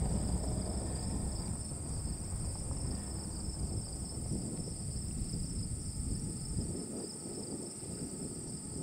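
Insects chirring steadily at two high pitches, over a low rumbling noise that eases off about two-thirds of the way through.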